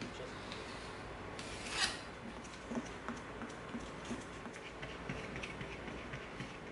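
Small bristle brush scrubbing and dabbing glue onto EVA foam, with soft scratchy strokes and light ticks and one louder swish about two seconds in.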